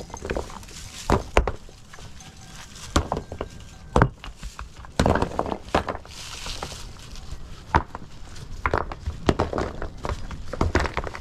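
Rough stones knocking and clattering against one another as they are lifted, dropped and set into a dry stone wall, in irregular knocks, a few of them loud.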